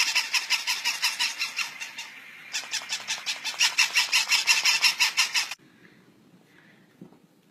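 Several battery-operated plush toy puppies yapping together in rapid, high-pitched electronic yips that briefly thin out, then cut off suddenly; after that a faint quiet room with one small knock.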